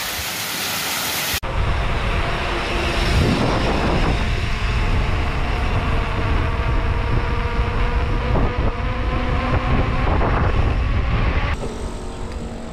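Steady rush of a waterfall for about a second and a half, then, after an abrupt change, heavy low wind rumble buffeting the microphone, with a steady rushing noise.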